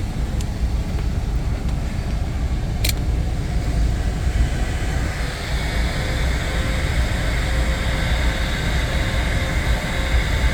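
Heat gun blowing steadily, heating vinyl repair compound on a console. There is a sharp click about three seconds in, and from about halfway a higher hiss and a faint steady whine join in.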